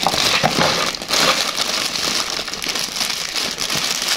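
Clear plastic packaging bag crinkling and rustling as small hands handle it and pull it open, an irregular crackle.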